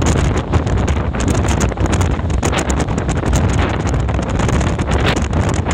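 Gale-force wind buffeting the microphone on a ferry's open deck: loud, steady wind noise with a heavy low rumble and constant gusty flutter.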